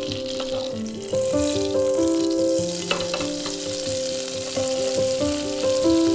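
Food sizzling as it fries in a hot pan, with a light knock about three seconds in.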